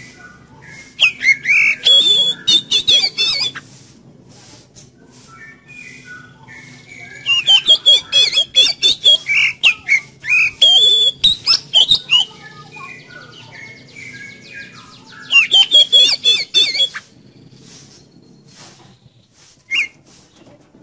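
Caged Oriental magpie-robin (kacer) in full song: three bouts of fast, varied whistled phrases mixed with harsh notes, the longest in the middle, and a single short note near the end.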